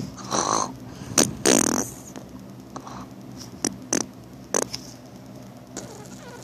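A sleeper snoring: a few breathy snores and snorts in the first two seconds, then quieter breathing with a few short clicks.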